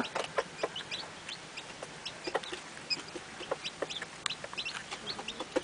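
Frizzle Cochin hen clucking softly while her chicks peep in short high cheeps, scattered throughout.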